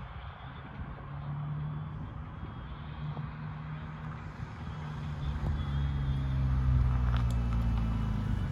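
A motor vehicle's engine running with a low, steady hum, growing louder a little past halfway through.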